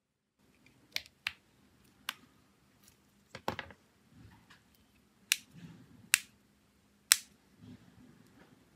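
Sharp, irregularly spaced clicks and taps, about seven of them, from small hand tools and phone parts being handled on a work surface during the phone restoration.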